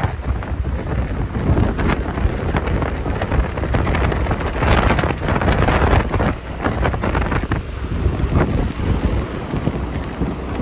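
Wind buffeting the microphone in uneven gusts on the deck of a moving passenger boat, over a steady rush of water and a low rumble.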